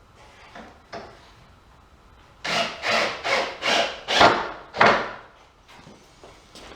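A hand tool worked across wood in six quick rasping strokes, about two a second, starting a couple of seconds in.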